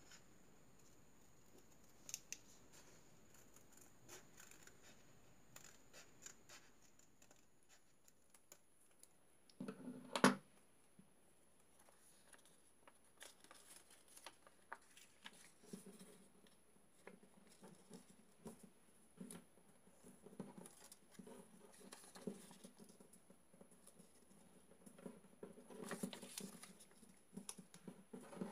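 Faint snipping of small plastic craft scissors cutting folded paper, with one louder clack about ten seconds in. After that, irregular paper rustling and crinkling as the cut sheet is unfolded and pressed flat.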